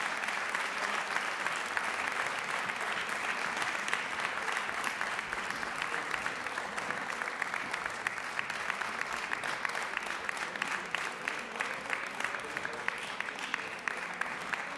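Audience applauding steadily, a dense, even clapping that thins slightly toward the end.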